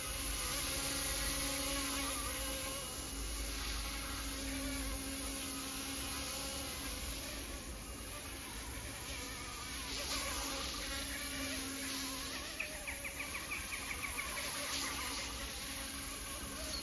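Small electric RC helicopter in flight: its motor and rotor give a steady buzzing whine that drifts up and down in pitch as it manoeuvres.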